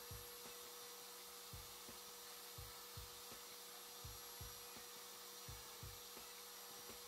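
Genmitsu 710W trim router running free at its speed-6 setting, a faint steady whine over a hiss, with soft low thumps at irregular intervals.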